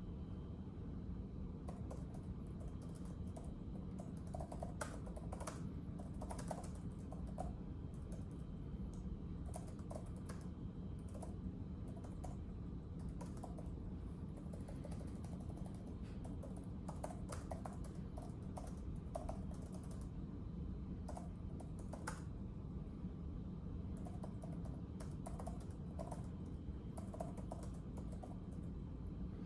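Typing on a keyboard: irregular runs of light key clicks, with short pauses between them, over a steady low background rumble.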